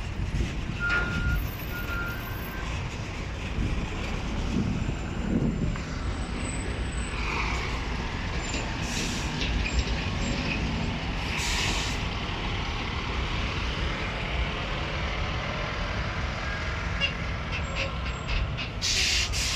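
Diesel train running with a steady low rumble as it pulls away, with a few short hissing bursts of air partway through and near the end.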